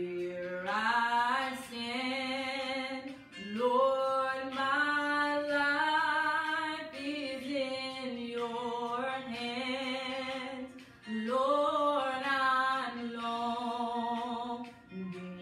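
A woman singing a slow worship song, holding long notes with vibrato and sliding between pitches, with short breaths between phrases.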